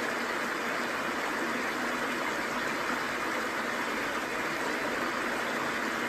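Steady rushing of running water, an even hiss with no separate knocks standing out above it.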